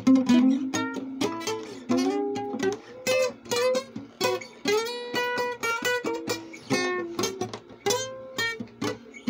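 Guitar played solo in a boogie-woogie style: a running pattern of picked notes and chords, some notes bent up in pitch.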